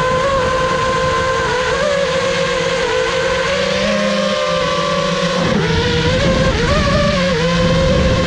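FPV multirotor drone's motors and propellers whining, the pitch wavering and shifting with the throttle, dipping about five seconds in and then rising again. Wind noise on the onboard camera's microphone runs underneath.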